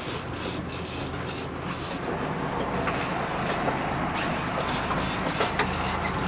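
Sport-fishing boat's engine running steadily under a rush of wind and water, with a run of short clicks from the big-game reel being cranked in the first couple of seconds.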